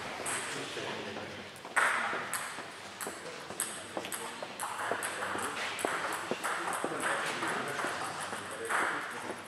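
Table tennis balls clicking irregularly off tables and bats, with voices in the background.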